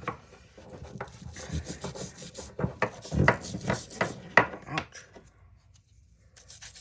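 Wire brush scrubbing caked crud off a part of a DeWalt DCF885 impact driver, in quick, irregular strokes that stop for a moment about five seconds in.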